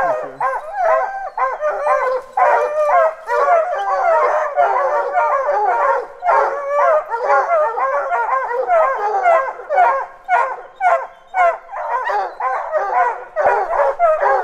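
A pack of hunting hounds baying treed at a black bear up a tree, several dogs barking and bawling over one another without a break. It is the steady tree bark that tells the hunters the bear is treed.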